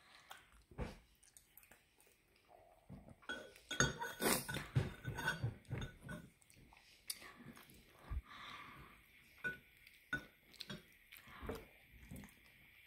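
A child eating: a metal spoon and chopsticks clinking and scraping against a ceramic bowl, with chewing in between. The clinks come thickest and loudest about four to six seconds in.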